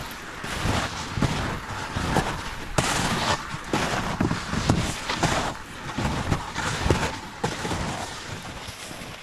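Walking footsteps crunching through wind-packed snow, a crunch roughly every two-thirds of a second.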